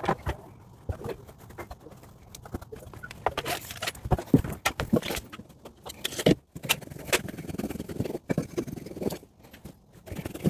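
Rockwool mineral-wool insulation batts being handled and cut to size: irregular rustling and scraping, with a few sharper knocks around the middle.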